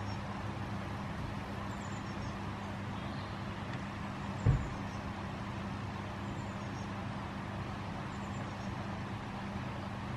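Steady low hum over an even background rumble, with one dull thump about four and a half seconds in and faint high chirps every second or so.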